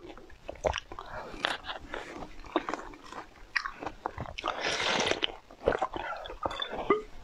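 Close-miked eating sounds: wet mouth clicks, smacks and chewing as green filling is sucked out of a glass test tube, with a longer slurp about five seconds in.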